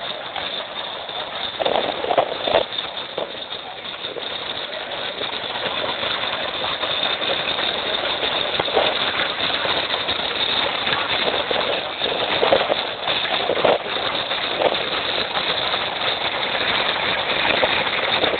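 Narrowboat engine running steadily alongside, heard through a phone microphone, with a few short louder sounds now and then.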